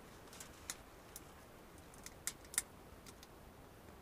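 A few sharp, irregular ticks and clicks from the lit wood-burning tent stove, the loudest pair a little past two seconds in, over a faint steady hiss.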